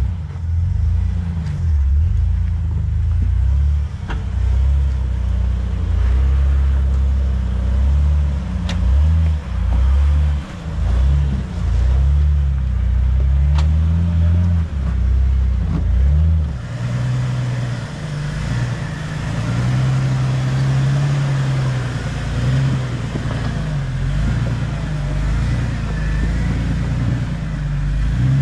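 Jeep engine running off-road, its note rising and falling with the throttle, with a few sharp knocks. About halfway through the engine note steadies at a higher pitch and a hiss of tyres or wind comes in.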